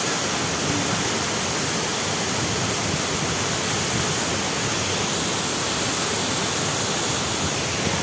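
Kempty Falls waterfall: water falling and splashing in a loud, steady rush.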